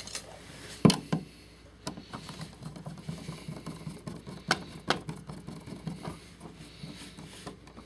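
Plastic outlet cover plate being handled and fitted over a wall receptacle: scattered small clicks and scrapes, with a sharper click about a second in.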